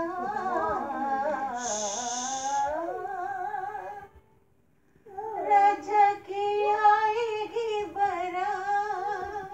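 A voice singing unaccompanied in a small room. One phrase, a break of about a second around four seconds in, then another phrase with long held notes.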